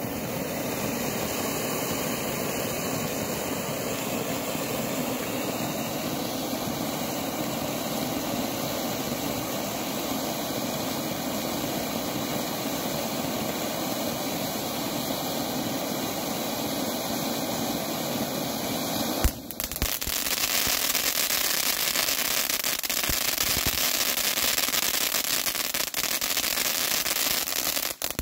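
Gerb fountain firework burning with a steady rushing hiss as it sprays sparks. About 19 seconds in there is a sharp pop, and it switches to a louder, brighter hiss with fine crackling that cuts off abruptly at the end.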